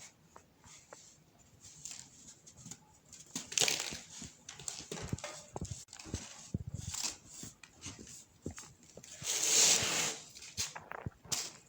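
Compressed baking soda crumbling and crushing into powder, in irregular soft crunches, with a longer, louder crumble about nine seconds in.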